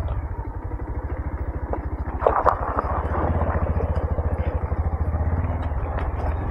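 Motorcycle engine running steadily while riding, with a short burst of clatter a little over two seconds in.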